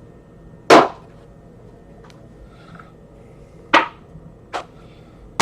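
A few sharp knocks on a tabletop as trading card packs and cards are handled. The loudest comes under a second in, with two more around the four-second mark and a last one at the end.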